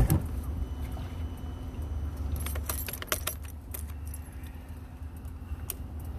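Keys jangling in runs of light metallic clinks, a knock at the start and the thickest cluster about two to four seconds in, over a steady low rumble.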